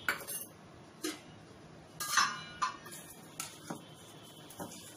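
Stainless-steel bowls, plates and a spoon clinking and knocking together and on a stone countertop, about eight separate knocks, the loudest, about two seconds in, ringing briefly.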